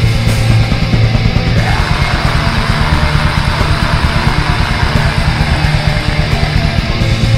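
Black metal song: distorted electric guitars over rapid, dense drumming, with a harsher, noisier layer coming in about a second and a half in.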